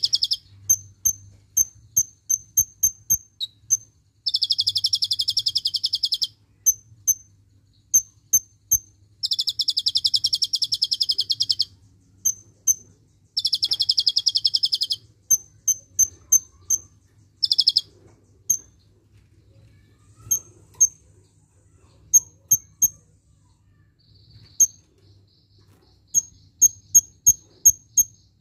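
Caged kolibri ninja (konin) sunbird singing. Runs of sharp, high chips alternate with several fast, buzzy trills of about two seconds each, the song filled with rapid cililin-style 'tembakan' phrases.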